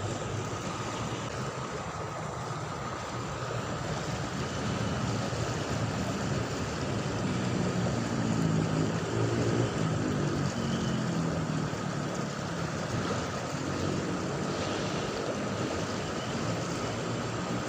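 River water flowing steadily, with a pitched hum coming and going in the second half.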